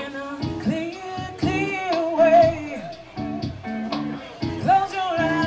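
A singer performing live to a strummed guitar, holding long wavering notes over the chords.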